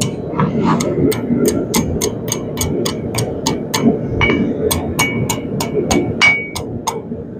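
Hand hammer striking a red-hot steel bar on an anvil in a quick, even rhythm of about four blows a second, forging a scroll end. Some blows leave a brief ring from the anvil, and a steady low rumble runs underneath.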